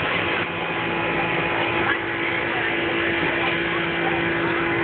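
Hubbub of a large outdoor crowd, many voices mingling without clear words, over a steady low hum.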